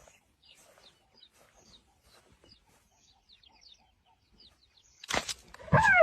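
Faint, scattered bird chirps. About five seconds in, a sudden loud burst of noise, then a loud wavering pitched cry.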